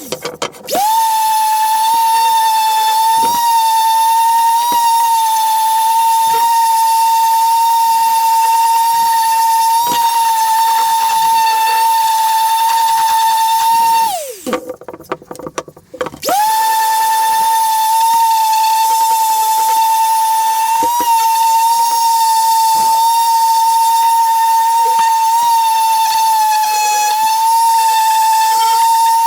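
Small electric power tool's motor whining at a steady high pitch. It spins down and stops twice, once just after the start and once about halfway through, and each time spins quickly back up to speed. Faint knocks are heard while it runs.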